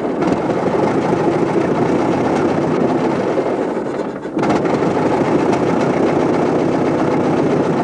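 Engine of a vintage-style open roadster running steadily as it drives along, with a brief drop in level about four seconds in.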